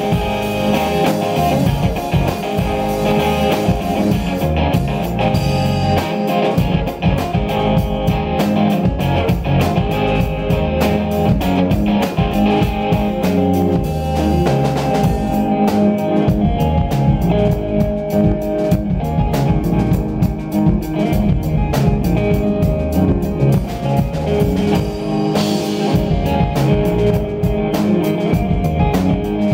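Live rock band playing an instrumental passage: electric guitar, bass guitar and drum kit together, with no singing.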